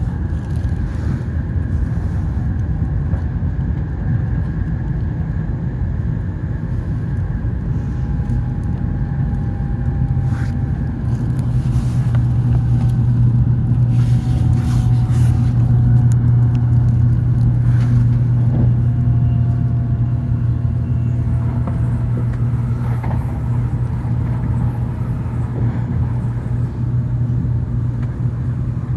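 N700S Shinkansen train running, heard inside a passenger car: a steady low rumble that grows louder about a third of the way in, with a faint whine slowly falling in pitch and a few brief clicks.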